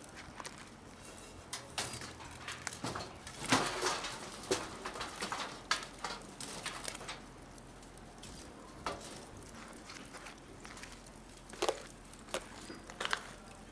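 Firewood burning in a secondary-combustion fire pit, crackling with scattered sharp pops, busiest a few seconds in.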